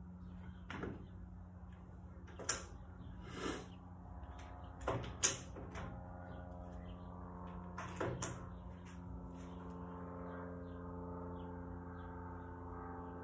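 Handling noise at a wooden bench: several sharp knocks and short rustling strokes as a steel nail and leather wraps are handled and set down, the loudest knock about five seconds in, over a steady hum.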